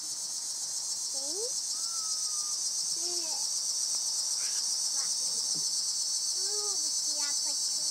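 Chorus of cicadas in the treetops, a steady high buzz that slowly swells louder.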